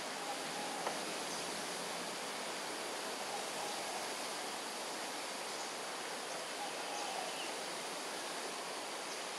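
Steady, even hiss of forest ambience, with a faint wavering animal call repeated about every three seconds.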